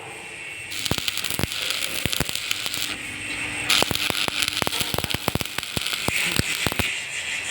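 Stick-welding arc crackling and spitting: a steady hiss broken by irregular sharp pops.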